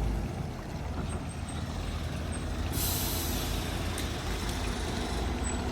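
Heavy truck engine rumbling on the road, with a short burst of hiss about three seconds in.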